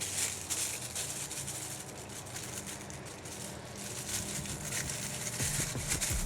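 Rustling of plastic accessory packaging being handled: an irregular crinkly hiss.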